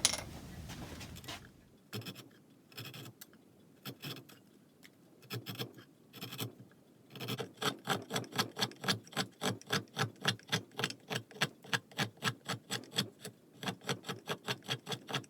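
Carving tools cutting into a cherry wood block as it is roughed out: a few scattered cuts at first, then from about seven seconds in a steady run of short, sharp strokes, about three a second.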